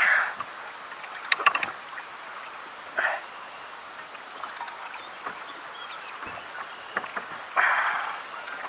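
A fish being unhooked and handled in a kayak. There is a quick run of sharp clicks and knocks from the tackle and hull about a second and a half in. Two short rustling bursts follow, one about three seconds in and one near the end.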